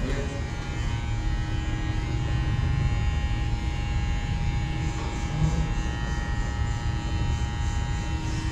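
Electric hair clippers buzzing steadily under a low electrical hum.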